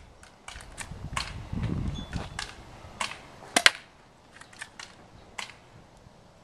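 Cheap airsoft BB gun being handled and fired: a string of small sharp clicks, the loudest a close double snap about three and a half seconds in.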